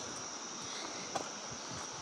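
Footsteps of a hiker walking a bush trail, a few sharp steps, over a steady high-pitched drone of insects and a constant background hiss.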